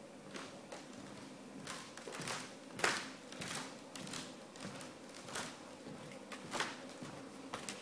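Irregular rustling and scraping, about a dozen short strokes with the loudest about three seconds in, over a steady hiss: handling noise on a handheld camera's microphone as it is moved.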